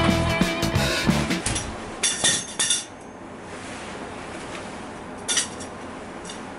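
Guitar background music cuts off about a second and a half in. Then come a few short, sharp sounds around two seconds in and one more near the end, over a quiet room.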